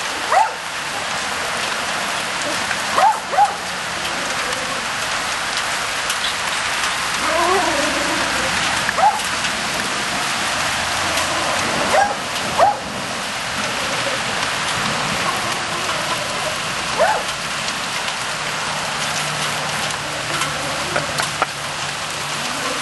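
Steady rain with a Jack Russell terrier barking in short, sharp barks every few seconds.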